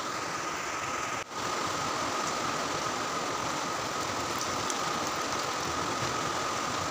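Pot of moong dal boiling on a gas stove: a steady hiss with a faint constant whine, cut off for an instant a little over a second in.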